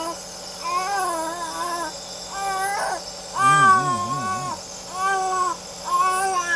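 Baby crying in a series of about five pitched wails, each up to about a second long with short breaks between, the loudest one about halfway through.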